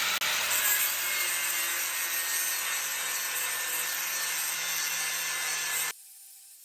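Electric angle grinder with an abrasive disc grinding along a metal strip: a loud, steady grinding hiss over the motor's hum. It stops abruptly near the end.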